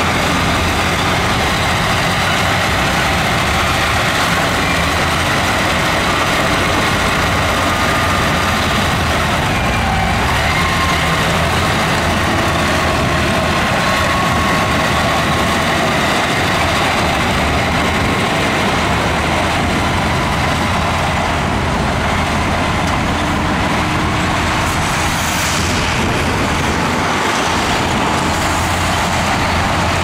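Heavy diesel earthmoving machinery working, its engines running loud and steady, with faint high whines coming and going.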